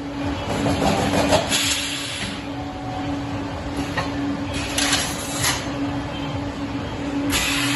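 Automatic welded-wire mesh machine running through its welding cycle: a humming tone that pulses on and off, with repeated short bursts of hiss.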